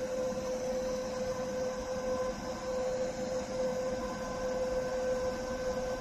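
Coaxial cable stripping machine humming steadily while switched on between strips: one held tone with fainter overtones above it.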